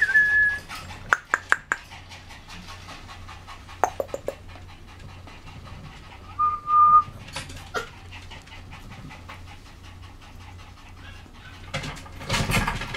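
Cream poodle puppy, just over three months old, giving short high whimpering squeaks: one rising and then held at the start, and a steady one of about half a second past the middle. Scattered clicks come between them, and a rough burst of noise near the end as the puppy moves about.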